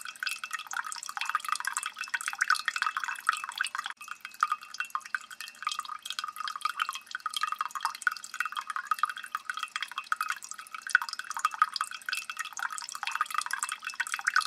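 Water dripping fast and irregularly, many small drops landing in quick succession without pause.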